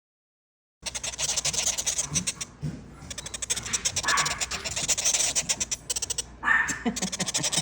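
Quaker parrot chicks begging for food with rapid, raspy chittering calls, starting about a second in: the sign of hungry nestlings waiting to be fed.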